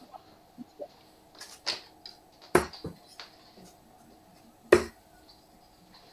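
Darts striking a dartboard: two sharp thuds about two seconds apart, with a few fainter clicks and taps before them.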